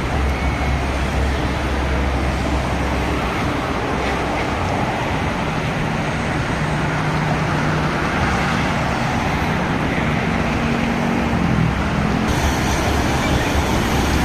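Road traffic passing close by: a steady rush of engines and tyres. From about six seconds in, a heavy vehicle's engine note climbs in pitch, and it drops away near the twelfth second.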